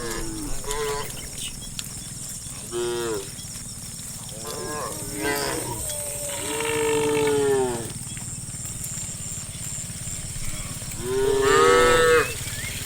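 Cows mooing, about six calls one after another: short calls at first, a longer one midway, and the loudest call near the end.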